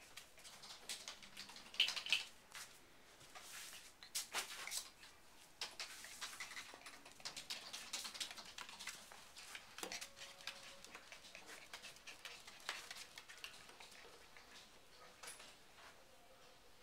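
Swedish Vallhund puppies' claws pattering and clicking on a hardwood floor, a run of many light taps, with one louder sharp sound about two seconds in.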